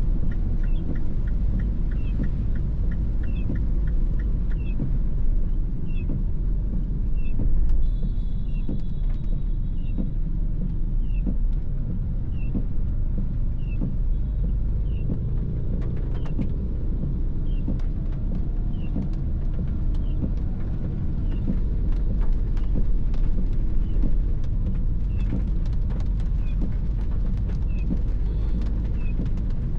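Cabin noise of a MINI Clubman (R55) on the move in the rain: a steady low engine and road rumble, with a faint short squeak repeating about once a second.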